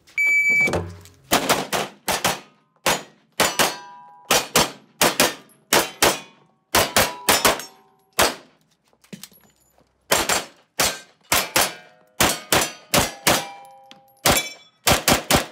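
A shot timer beeps, and about a second later a pistol fires a long run of rapid shots at steel targets, many hits ringing on the steel. The shots come in two strings with a short break about halfway through.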